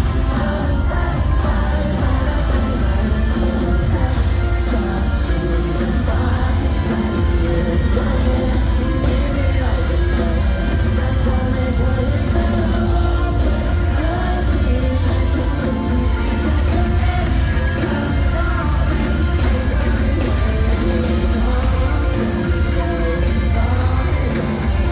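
Live pop-rock band playing a song with singing. The loud, booming bass dominates.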